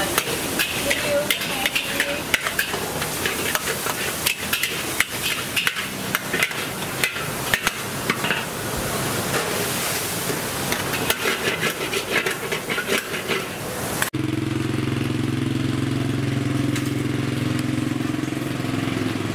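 Food stir-frying in a hot pan: a steady sizzle with frequent sharp clicks and clatter of a metal utensil against the pan. About 14 seconds in it cuts suddenly to a steady low engine hum.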